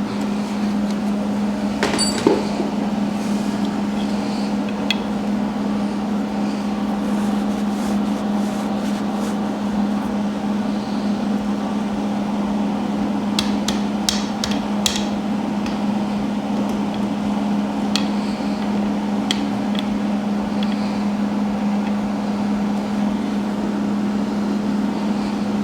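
Scattered sharp metal clicks and taps from hand tools on the bike, over a steady low hum.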